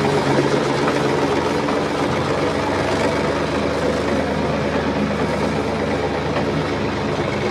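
Heavy engine running steadily at an even speed, a low continuous drone.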